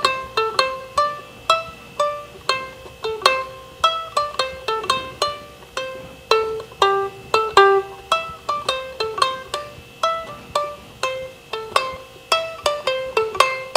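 3D-printed concert ukulele with nylon parts being played: a quick melody of single plucked notes, several a second, each ringing briefly before the next.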